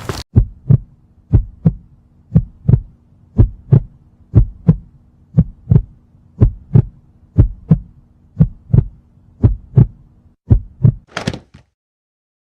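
Heartbeat sound effect: paired lub-dub thumps about once a second, eleven beats in all, over a faint steady hum. Near the end a short high burst follows, then it cuts off.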